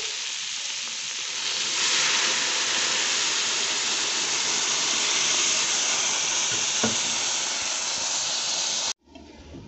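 Boiling water poured into a pot of fried bacon, chicken and sausage, which sizzles and hisses steadily, louder from about two seconds in. One light knock comes near seven seconds. The sound cuts off suddenly near the end, leaving a faint hiss.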